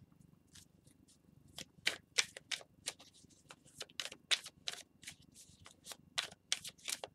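A tarot deck being shuffled by hand: a run of quick, irregular card clicks and slaps, several a second, starting about a second and a half in.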